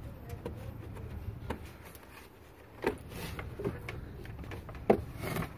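Air filter housing lid being handled: scattered light clicks and knocks, two of them louder, with a few brief rustling scrapes.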